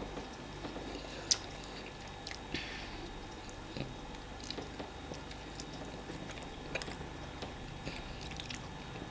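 Quiet chewing and soft, wet eating sounds of fufu and egusi soup, with scattered small clicks.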